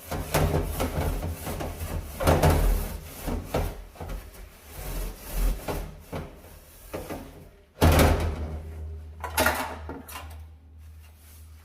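Brush scrubbing strokes on a dirty oven or stovetop, irregular and close, then two loud knocks, one about eight seconds in and another a second and a half later.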